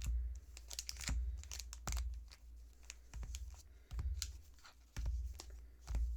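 Foil-wrapped trading card booster packs being handled and sorted on a table: plastic wrappers crinkling and crackling, with a series of light knocks as packs are set down.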